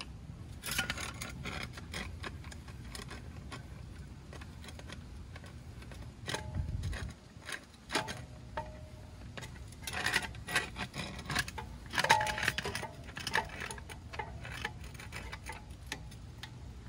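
Metal tools and suspension parts clinking and clanking in irregular bursts, with a couple of short metallic rings, while a front strut is worked back into place.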